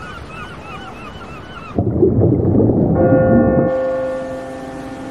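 Seabirds crying over breaking surf, cut off about two seconds in by a sudden deep, muffled boom that rumbles for nearly two seconds. A sustained low chord of several steady tones sounds through the rumble and slowly fades.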